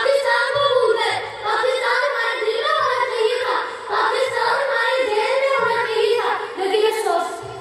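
A child singing, a high voice holding long notes that glide up and down, with hardly a break.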